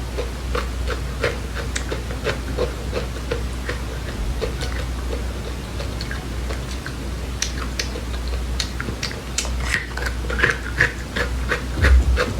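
Someone chewing and crunching dry seeds: a quick, irregular run of small crisp cracks, several a second, with a steady low hum underneath and a louder cluster of cracks near the end.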